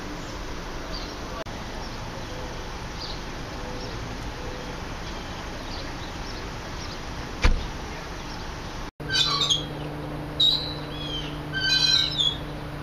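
Small birds chirping and twittering in short irregular calls, some gliding in pitch. They are faint at first and louder after about nine seconds, when a steady low hum also starts. A single sharp click comes about seven and a half seconds in.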